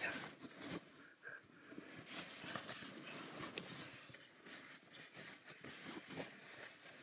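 Nylon sleeping bag and padded clothing rustling in irregular soft bursts as a person shifts about and settles into the bag, with a few light knocks from handling things in a car's back seat.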